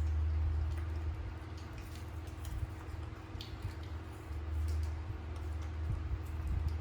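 Eating Indian jujube fruit: faint, scattered wet chewing clicks over a steady low hum.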